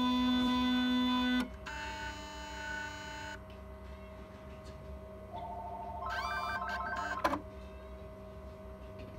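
Agilent 1290 Infinity autosampler's motors whining at steady pitches as the mechanism moves. One whine cuts off about a second and a half in and a second, higher one runs for a couple of seconds. Later a rapidly pulsing whine rises in pitch as a motor speeds up, ending in a sharp click a little after seven seconds.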